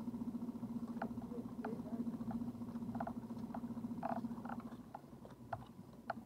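A small boat's motor running steadily at trolling speed with a low hum, which weakens about five seconds in. Scattered light ticks and taps sound over it.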